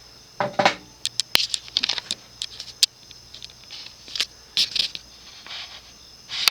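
Irregular light clicks, taps and short scrapes over a faint steady hum from a cast-iron ceiling fan motor running on low.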